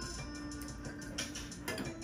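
Background music with held notes and an occasional beat.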